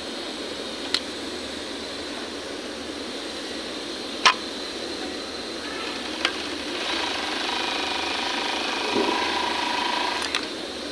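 Industrial overlock (serger) machine running for about three seconds in the second half, its motor whining steadily as it stitches and trims a fabric edge in a test seam. A few sharp clicks come before it, the loudest about four seconds in.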